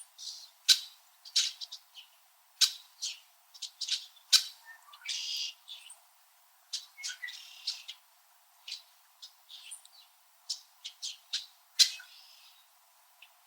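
Red-winged blackbirds giving winter calls: a steady stream of short, sharp chips from several birds, with a few longer, noisier calls mixed in.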